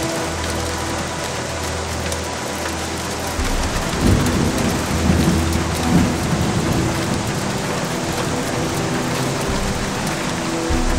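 Heavy rain pelting a car's windshield and roof in a violent thunderstorm: a dense, constant hiss of drops. A deep rumble swells from about three and a half to seven seconds in.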